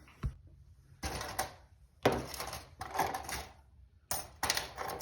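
Padlock being handled: small metal and plastic clicks and rattles in three short bursts.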